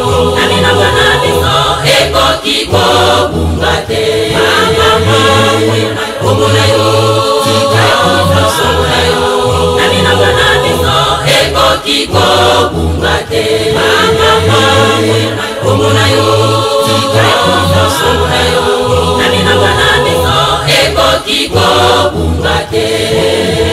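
Women's choir singing a gospel song in unison and harmony, over a pulsing low accompaniment with a steady beat.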